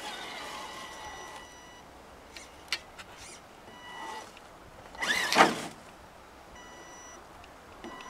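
Axial SCX10 Deadbolt RC crawler's small electric motor and gears giving a steady whine that starts and stops with short bursts of throttle as the truck crawls over leaf litter. A couple of sharp clicks near the middle, and a louder rustling scrape about five seconds in.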